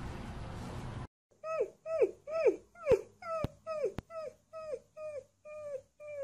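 Husky-type puppy giving a run of short cries, about two a second, each dropping in pitch, becoming shorter and flatter toward the end. Before it, about a second of steady noisy rush that cuts off abruptly.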